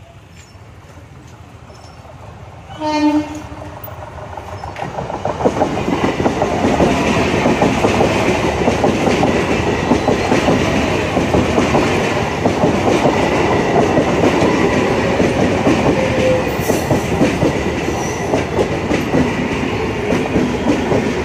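Eastern Railway EMU local train sounding its horn once, about three seconds in. The noise then builds as it approaches and passes close at speed from about five seconds in, its wheels clattering fast and loud over the rail joints.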